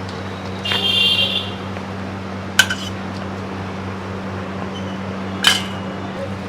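Metal utensils clinking sharply twice with a short ring, with a brief high scrape about a second in, over a steady low electric hum.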